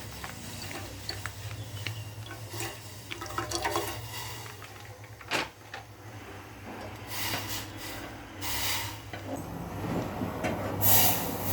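Milk being poured into a pan, heard as hissy rushes of liquid that come in a few bursts in the second half and are loudest near the end. Small clinks and ticks of kitchen utensils run through it, with one sharp knock about five seconds in.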